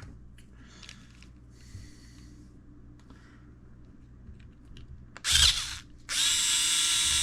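Faint handling of small parts, then a small electric drill/driver runs: a short burst about five seconds in, then a steady whine from about six seconds on.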